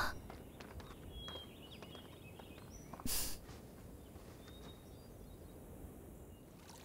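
Quiet garden ambience with faint, scattered bird chirps, and one short sniff through the nose about three seconds in.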